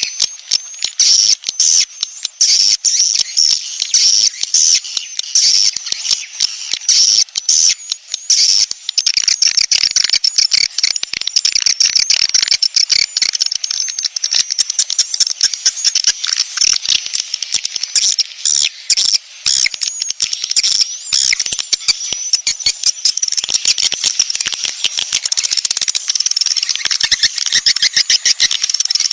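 Dense, continuous twittering of a swiftlet colony, many rapid high chirps overlapping without a break. This is a swiftlet lure call ('sedot anakan'), played to draw young swiftlets into a nesting house.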